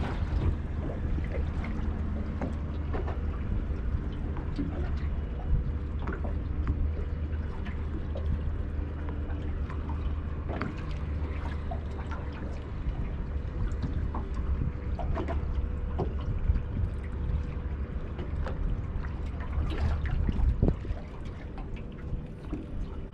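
Wind rumbling on the microphone and water splashing against the boat's hull, with scattered small clicks and knocks.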